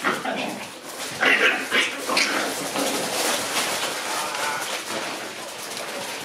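Shiba Inu puppies yapping and whimpering, with a few short high yips in quick succession a little over a second in.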